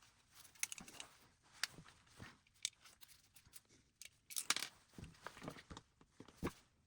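Scattered light clicks, taps and short scrapes from the new suction motor being handled and fitted into a Roomba i7 robot vacuum's housing.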